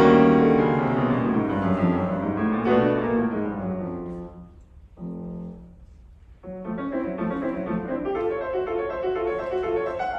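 Steinway grand piano played solo: a loud, full passage at the start fades away, and a single soft note sounds in a brief lull. Then quick, lighter notes start up again about six and a half seconds in.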